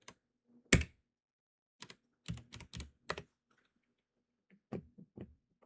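Typing on a computer keyboard: a dozen or so separate keystrokes at uneven spacing, the loudest about a second in, several in quick succession near the middle and a few more near the end.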